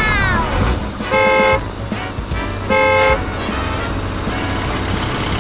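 A cartoon dump truck's horn honks twice, each toot about half a second long and about a second and a half apart, over a steady low engine rumble.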